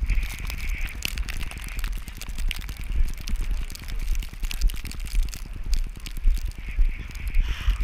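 Blizzard wind buffeting a GoPro's microphone with a constant low rumble, overlaid by dense irregular crackling clicks.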